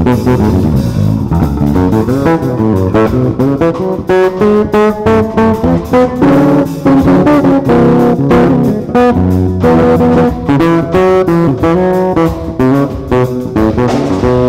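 Electric bass guitar played alone, a busy melodic line of quickly plucked notes.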